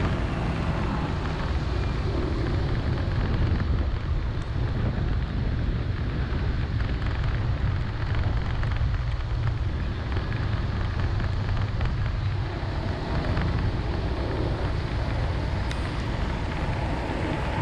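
Vehicle driving through heavy rain: a steady low rumble of engine and road with an even hiss of rain and wet tyres.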